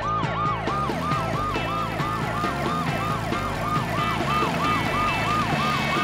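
Ambulance siren yelping, a fast rising-and-falling wail that repeats about three times a second.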